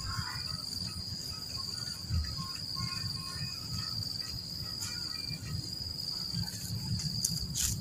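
Steady, high-pitched drone of insects, with an uneven low rumble underneath and faint scattered chirps.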